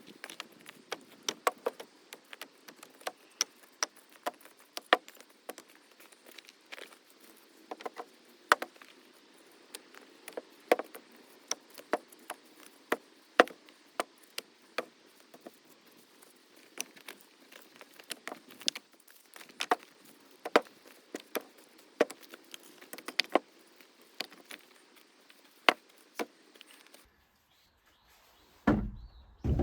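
Many light, irregular clicks and knocks, sometimes several a second, over a faint background. They stop abruptly near the end, followed by a single low thud.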